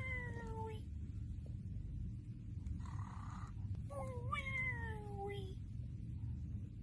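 A cat meowing twice, about four seconds apart: two drawn-out meows, each falling in pitch, with a faint short hiss between them over a steady low hum.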